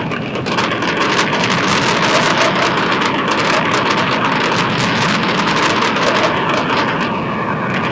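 Fireworks crackling: a dense, continuous shower of tiny rapid pops, like heavy rain, sustained for several seconds.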